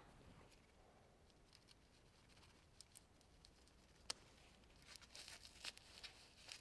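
Faint scraping and tearing of a utility knife blade slitting the seal of a foam insulation wrap, with a single sharp click about four seconds in and a quick run of rasping cuts near the end.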